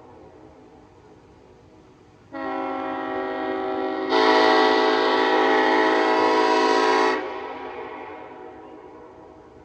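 Nathan Airchime K5LLA five-chime train horn blowing one blast of about five seconds. It starts with a partial chord about two seconds in, jumps to a louder, fuller chord about two seconds later, then cuts off sharply and its echo fades away.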